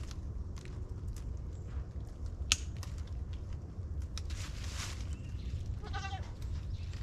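A pygmy–Nigerian Dwarf cross goat bleats once, briefly, about six seconds in. Earlier there is a single sharp click about two and a half seconds in, the loudest sound, from the plastic insulator clips being worked onto the steel T-post, and a short rustle just before five seconds.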